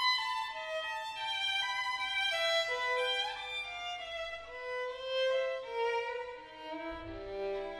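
Background music: a violin playing a melody, moving from note to note.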